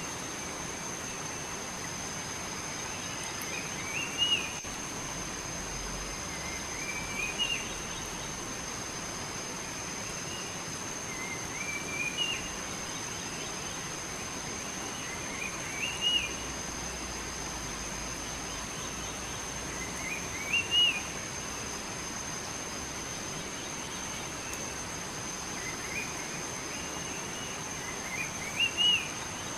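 A songbird repeating a short, rising chirped phrase about every four seconds over a steady outdoor hiss, with a thin, steady high-pitched tone throughout.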